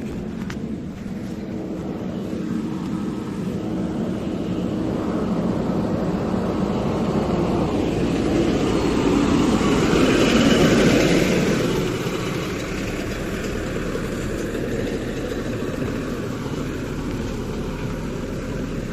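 Diesel engine of heavy construction machinery running steadily, growing louder to a peak about halfway through, then easing back down.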